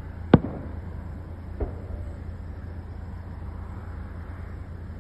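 Fireworks going off: a sharp bang about a third of a second in and a fainter one about a second later, each trailing off in an echo, over a steady low rumble.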